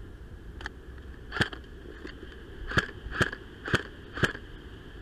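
Airsoft gun firing single shots, each a sharp crack. One shot comes about a second and a half in, then a quick string of four about half a second apart, with a fainter crack near the start.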